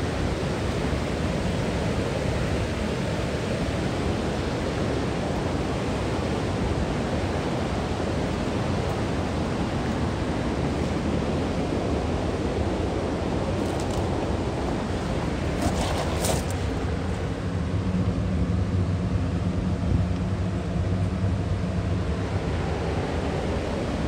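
Steady rushing of river water and a waterfall, with a couple of brief clicks a little past halfway.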